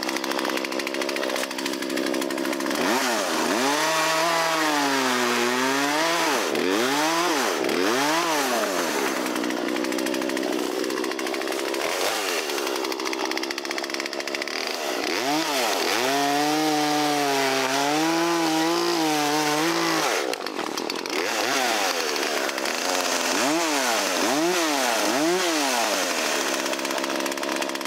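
Small two-stroke chainsaw, a McCulloch Mini Mac 35, cutting small wood: the engine revs up and its pitch sags and recovers again and again as the chain loads in the cut, with a brief dip about twenty seconds in.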